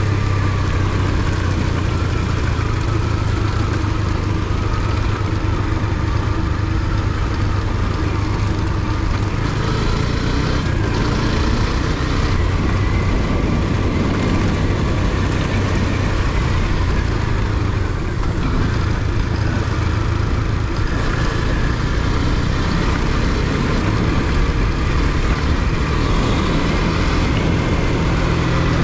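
Motorcycle engine running steadily while riding, its note rising and falling a few times, over a constant rush of wind and road noise.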